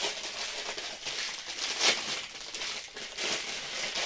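Clear plastic packaging bag crinkling and rustling in the hands as a coiled GPS antenna cable is taken out of it, with one louder crackle about two seconds in.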